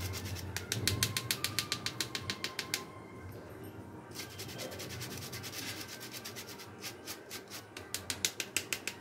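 Metal spoon scraping rapidly round a fine mesh sieve, pushing ragi flour through: a fast, even rasping tick of about eight strokes a second. It pauses about three seconds in, comes back fainter, and is loudest near the end.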